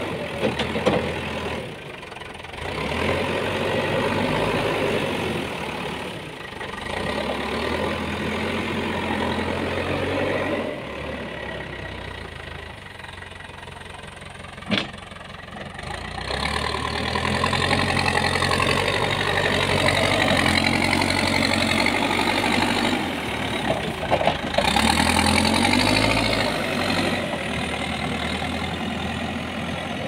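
Manitou backhoe loader's engine running and revving up and down as the front bucket pushes and lifts brush. It eases off for a few seconds before the middle and works harder again later. There is one sharp click about fifteen seconds in.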